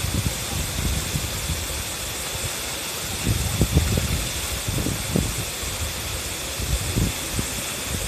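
Steady rush of a double waterfall, two streams falling about 17 m into a rocky pool, with uneven low rumbles rising through it, strongest about three to four seconds in and near the end.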